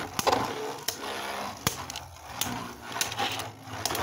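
Two Beyblade Burst tops, a W5 Bahamut and an Ace Dragon, spinning and repeatedly clashing in a plastic stadium: an irregular run of sharp plastic clacks over a steady whirr.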